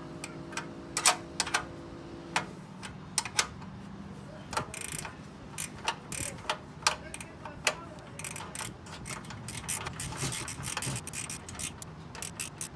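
A socket ratchet and metal hardware clicking and knocking in irregular strikes, with a denser run of fast ratchet clicks about ten seconds in, as the bolts holding a Jeep's aftermarket inner fender are fastened.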